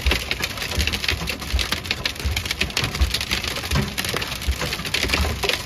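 Hail and rain pelting the metal roof and windshield of a camper van, heard from inside the cab: a dense, continuous patter of small hits, with irregular low thuds underneath.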